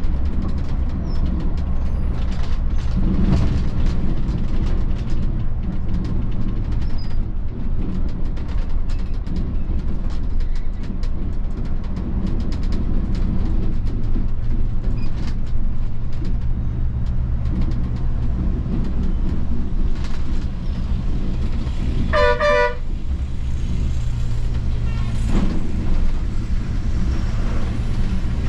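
Volvo B11R coach's six-cylinder diesel engine running steadily under way, with road noise. A short two-note horn blast sounds about three-quarters of the way through, and another begins at the very end.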